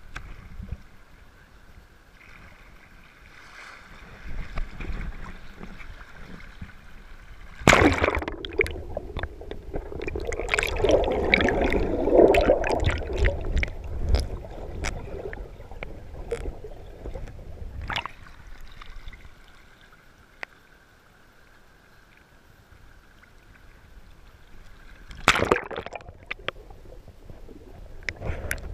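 Shallow sea surf sloshing and splashing against a camera at the waterline, with muffled churning and bubbling while it is under water. A sudden loud splash comes about eight seconds in and is followed by about ten seconds of crackling, gurgling water. A second sharp splash comes near the end.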